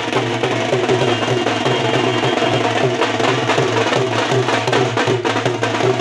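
Loud live festival drumming, fast and steady, with beaten barrel drums driving the rhythm.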